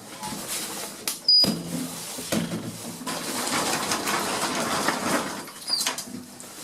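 Passenger lift in operation: a loud clunk with a short high beep about a second in, then a few seconds of mechanical running noise, and another short high tone near the end.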